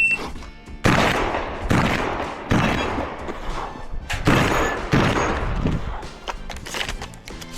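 Shotgun fired five times in quick succession during a competition stage, with the gaps between shots uneven: three shots close together, a pause, then two more.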